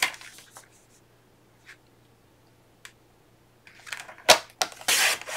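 Cardstock being handled on a sliding-blade paper trimmer: a few light paper rustles and clicks, then about four seconds in a sharp click followed by a longer scraping sweep as the trimmer blade is drawn along its track, cutting the sheet.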